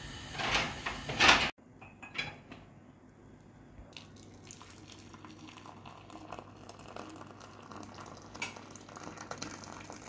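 Ginger milk tea bubbling at the boil in an aluminium saucepan, loud at first and cut off suddenly about a second and a half in. Then, more quietly, the pan clinks now and then as tea is poured from it into a china cup.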